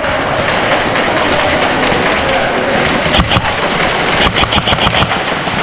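Airsoft guns firing in two quick bursts of rapid cracks, about three seconds in and again near the end, over a steady rustling noise.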